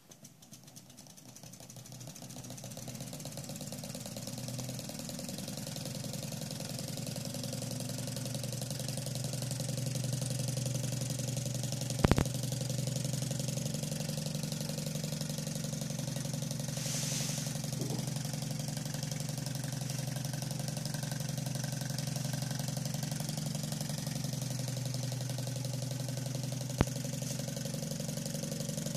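Small homemade Manson hot-air engine running fast, its flywheel and piston giving a steady mechanical hum that builds up over the first several seconds as the engine gains speed and then holds even. A sharp click comes about twelve seconds in and another near the end.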